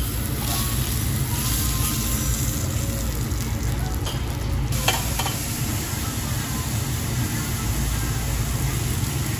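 Meat and vegetables sizzling on a round stainless Korean barbecue grill plate: a steady frying hiss over a low rumble, with one sharp click about five seconds in.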